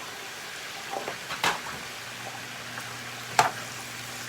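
Pre-blanched squid and onion stir-frying in a pan with a steady sizzle. The spatula strikes the pan twice, about a second and a half in and again near the end.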